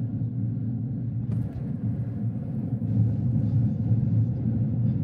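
Wind buffeting an outdoor microphone: a steady, loud low rumble.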